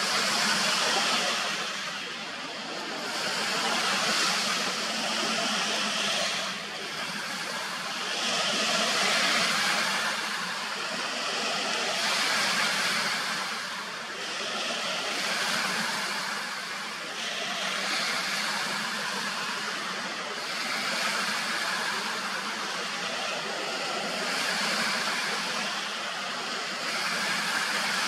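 Small lake waves washing onto the shore, a rushing wash that swells and eases every two to three seconds.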